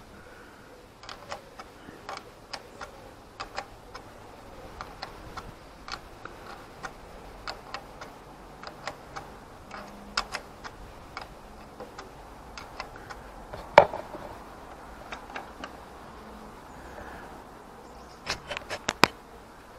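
Light, irregular metal clicks and taps of a spanner working the clutch cable adjuster nuts on a Zontes Tiger 125cc motorcycle engine, with one sharper click partway through and a quick run of louder clicks near the end.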